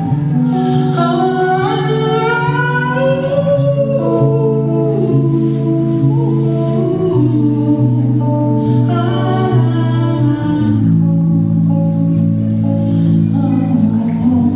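A man singing long, sliding held notes over sustained electric bass notes that change every second or two.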